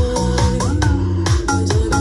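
A Vinahouse dance track played loud outdoors through column speakers, each with four 10 cm drivers and a tweeter, stacked together as a line array. A steady kick drum beat runs under electronic synth and organ-like notes.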